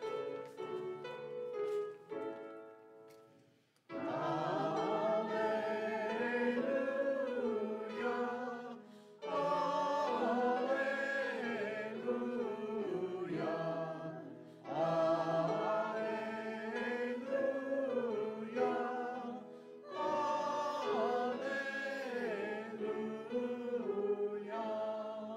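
Church choir singing a short sung response in four phrases with brief breaths between them, after a short keyboard introduction.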